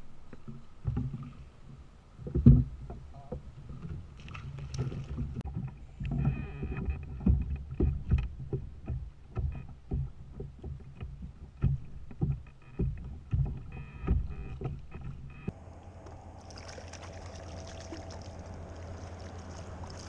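Water slapping and knocking against a plastic kayak's hull, irregular low thumps with small clicks between them. About three-quarters through, the sound cuts abruptly to a steady hiss over a low hum.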